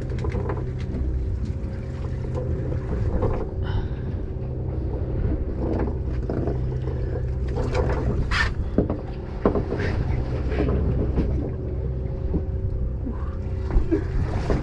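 Charter fishing boat's engine running steadily, a constant low hum, with scattered knocks and clicks from handling on deck.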